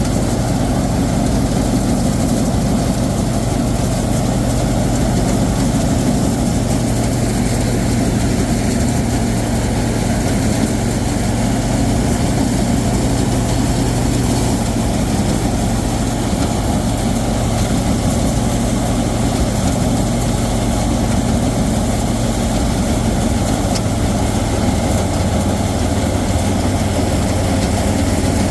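Rice combine harvester's engine running steadily, a loud, even hum.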